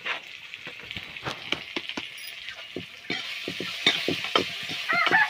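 Steel ladle scraping and stirring tomatoes and spices frying in oil in a metal kadhai. Many short scrapes throughout, and the sizzle grows denser about three seconds in.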